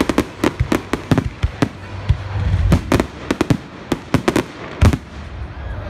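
Fireworks display: a rapid, irregular string of sharp bangs from aerial firework bursts over a low rumble, with the loudest bang near the end.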